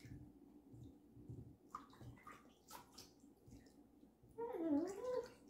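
Kitchen prep at the counter: scattered knife taps and clatter on a cutting board while food is chopped, with a short wavering vocal sound about four and a half seconds in.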